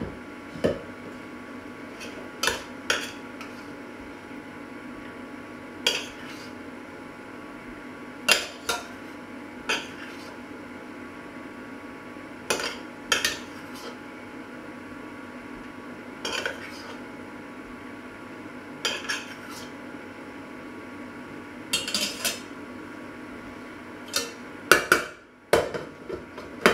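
Metal spoon clinking and scraping against a stainless steel saucepan and a china plate as cooked rice is served out, in separate clinks every second or two, with a louder clatter near the end. A steady low hum runs underneath.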